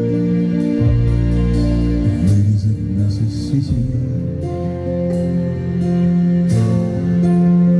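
A band playing an instrumental passage of a song, led by guitar over held bass notes, with no singing.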